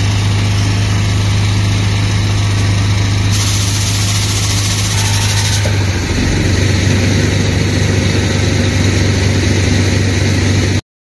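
Engine running steadily, driving the transfer pump that fills the tractor tire with beet-juice ballast. It cuts off abruptly near the end.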